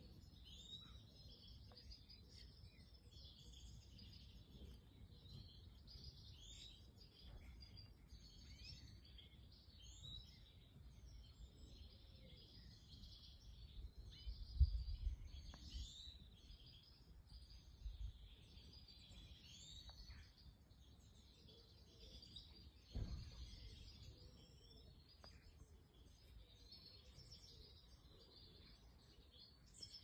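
Small songbirds chirping and twittering, many short high calls scattered throughout, faint, over a low rumble. A couple of dull low bumps stand out, about halfway through and again a little later.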